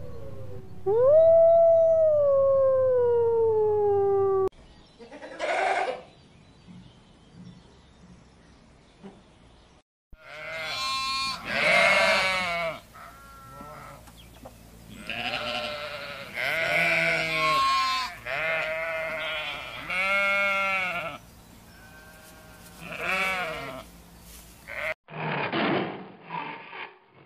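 A wolf howling, one long call that falls slowly in pitch. After a pause, sheep bleating over and over in quavering calls, and near the end a short, rough tiger growl.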